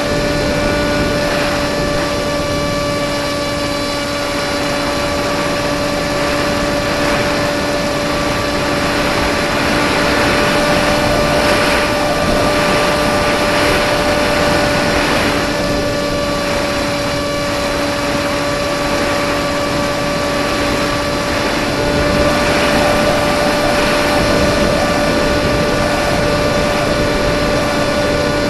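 A radio-controlled plane's motor and propeller drone at a nearly constant pitch, picked up by the plane's own onboard camera, with air rushing over the microphone that swells at times.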